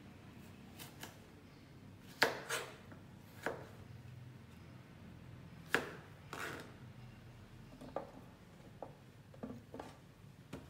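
Kitchen knife cutting cucumber on a plastic cutting board: irregular sharp knocks of the blade striking the board, about a dozen, with the loudest near two seconds in and near six seconds in.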